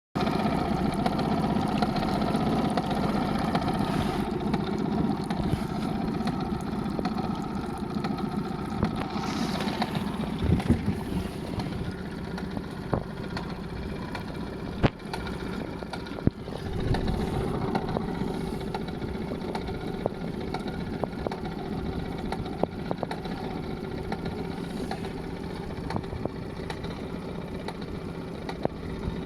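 Honda BF20 four-stroke outboard motor running steadily with a knock, which the owner places in the engine or the lower-unit gearbox. A few sharp clicks stand out midway.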